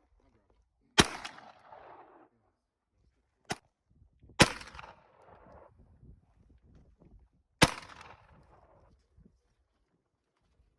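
Three rifle shots about three seconds apart, each sharp report followed by a fading echo. A shorter, quieter sharp crack comes just before the second shot.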